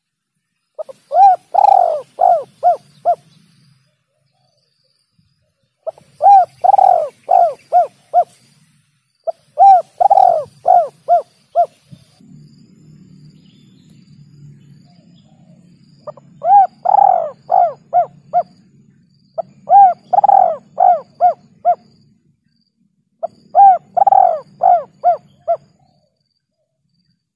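Spotted dove (tekukur) cooing: six phrases of several quick, arched coos, each phrase opening with its loudest note and the rest trailing off. A faint low hum lies under the later phrases.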